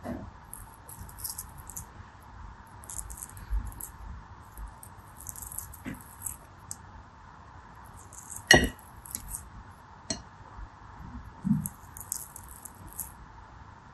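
Small crushed soap pieces sprinkled from the fingers into a clear ribbed dish, tinkling in several short crisp bursts, with one sharper click a little past halfway.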